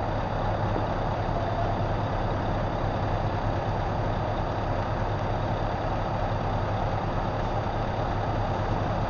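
Scania 4-series tractor unit's diesel engine idling steadily, a low even hum with no revving.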